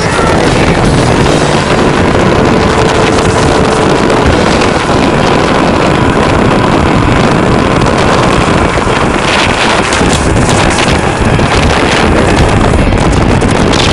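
Strong wind buffeting the microphone over the rushing and splashing of seawater along the hull of a sailboat driving hard under sail. Loud and steady.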